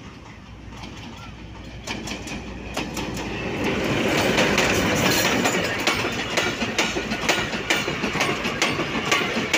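GMCU-15 diesel-electric locomotive drawing a slow goods train past at close range. Its engine drone grows louder until it is alongside about four seconds in, and from about two seconds in the wheels click over the rail joints in a steady run.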